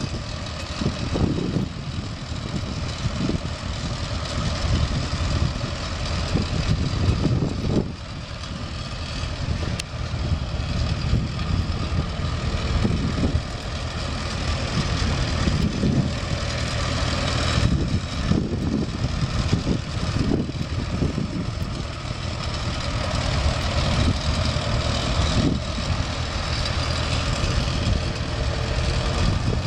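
Farmall BN tractor's four-cylinder engine running at low speed as it is driven around, its level rising and falling unevenly.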